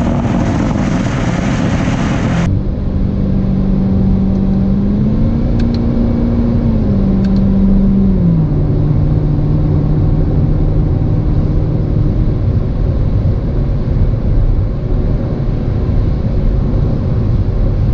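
2019 Corvette ZR1's supercharged V8 heard from inside the cabin while driving, a steady engine drone under a loud rushing noise that cuts off about two and a half seconds in. The engine note then rises a little, falls back in two steps and holds at a lower steady pitch.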